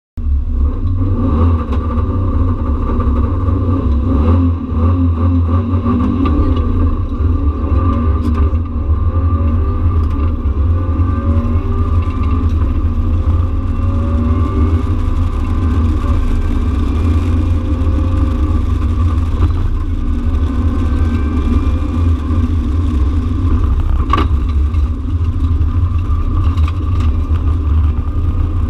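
Subaru Impreza WRX STi Type-RA rally car heard from inside its cabin at full stage pace: the turbocharged flat-four engine revving up and falling back again and again as it is driven through the gears, over a heavy low drivetrain and road rumble. A single sharp knock sounds late on.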